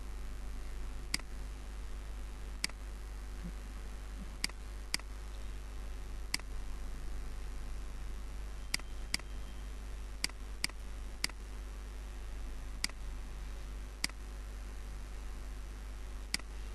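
Computer mouse button clicking about a dozen times at irregular intervals, each a short sharp click, over a steady low electrical hum.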